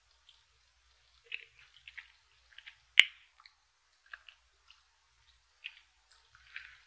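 Close-up chewing of a brownie: scattered soft, sticky mouth sounds, with one sharp click about three seconds in.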